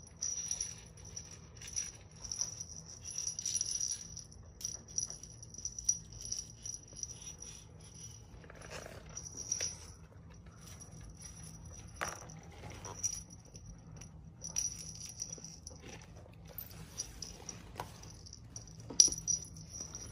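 Small bell on a feather wand cat toy jingling in short runs as the wand is twitched, with a few light clicks.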